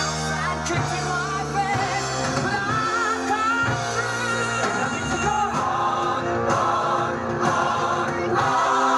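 Music with several voices singing along together: a winners' anthem sung by the group on stage.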